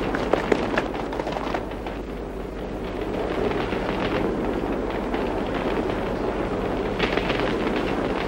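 Forest fire burning: a steady rushing rumble full of crackling and popping, the crackles thinning out about two seconds in and picking up again near the end.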